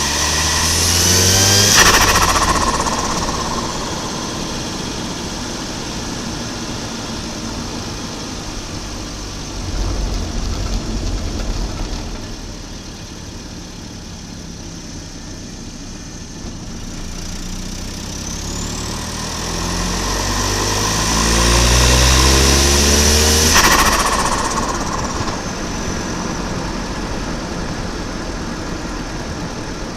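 Volvo 940 Turbo's B230FT turbocharged 2.3-litre four-cylinder revving up twice, with the turbo whistle rising as it spools. Each time the throttle shuts, once near the start and again about three-quarters of the way through, the engine note drops suddenly and the turbo whistle falls away with compressor-surge flutter. In between, the engine runs at a lower steady note.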